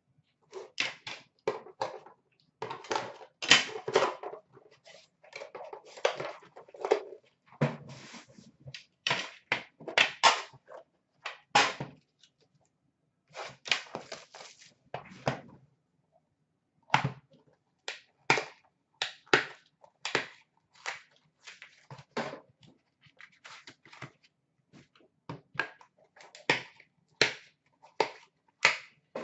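Hands opening an Upper Deck The Cup hockey card tin and taking out the cards: irregular clicks, taps and scrapes from the tin box, its lid and the cards, with a pause of a few seconds about halfway.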